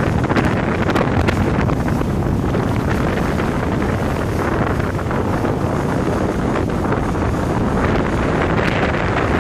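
Steady wind buffeting the microphone aboard a motorboat under way on choppy water, with the rush of the boat's motion through the water underneath.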